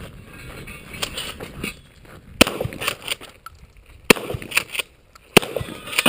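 Shotgun shots, three of them about a second and a half apart and a fourth just at the end, with lighter clicks and clinks between them.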